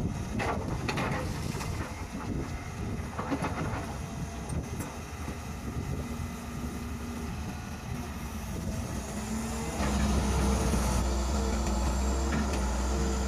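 Kobelco hydraulic excavator's diesel engine running steadily as the machine digs and spreads soil, with wind on the microphone and a few brief knocks early on. The engine becomes louder and steadier from about ten seconds in.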